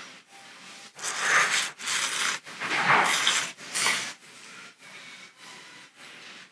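A person slurping thick Morioka cold noodles (reimen) off chopsticks: four noisy slurps one after another, starting about a second in and ending about four seconds in.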